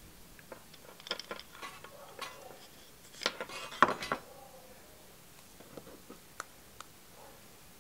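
Light clicks and knocks from handling a small wooden phone stand and threading a charging cable and its plug through it, loudest in a cluster about four seconds in.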